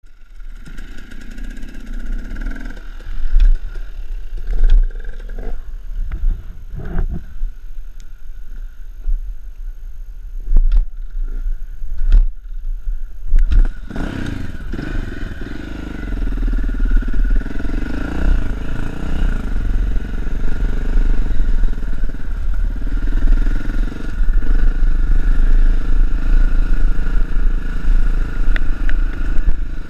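Dirt bike engine running slowly with a low rumble and several loud thumps, then from about halfway it pulls away under throttle and runs steadily louder, its pitch rising and falling as the bike rides along a dirt trail.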